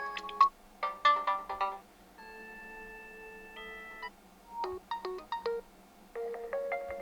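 Realme C53 default ringtones played in short snippets: a quick run of bright electronic notes, then a held synth chord that shifts near the middle, then short staccato notes and another melodic phrase near the end.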